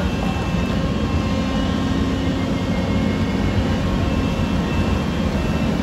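Doosan crawler excavator's diesel engine running steadily under load while the bucket digs into earth and rock.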